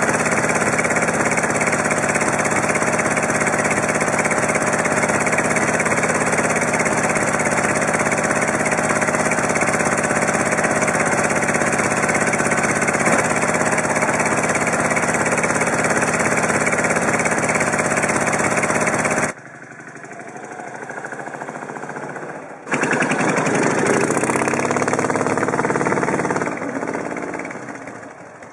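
Chang Jiang 750's flat-twin engine running steadily and loud. About two-thirds of the way in it drops quieter for a few seconds, then comes back loud with its pitch rising and falling before fading near the end.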